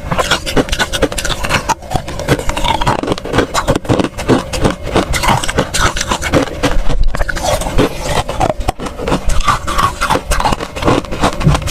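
Freezer frost crunched and scraped close to the microphone: a dense, continuous crackle of small crisp crunches.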